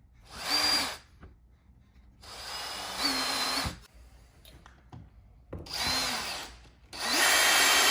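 Power drill driving a screw for a blind bracket straight in without a pilot hole, in four short bursts, its motor whine rising as it spins up each time.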